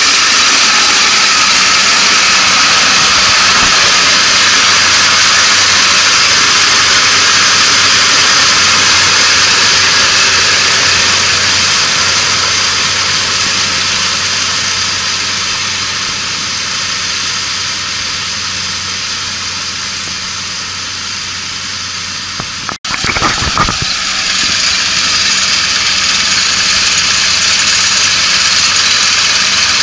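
Kubota ARN460 combine harvester running under load as it cuts and threshes flattened (lodged) rice: a steady, dense engine and machinery noise. It grows fainter as the machine moves off, breaks off sharply for an instant about 23 seconds in, and comes back louder.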